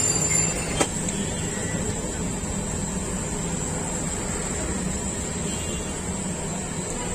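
Steady roadside background noise with a low traffic hum, and a single sharp click about a second in.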